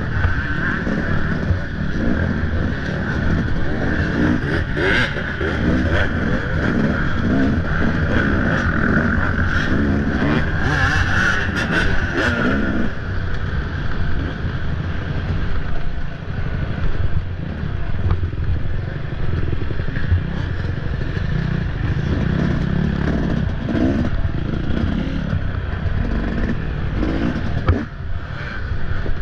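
Off-road dirt bike engine revving up and down continuously as it is ridden over rough ground, with knocks and rattles from the bike.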